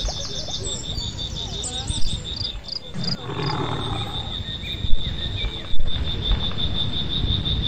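An insect chirps steadily in a fast high pulse, about five beats a second, over a low rumble of wind or handling. Bird chirps sound in the first second, and a brief murmur of people's voices comes about three seconds in, with a few knocks.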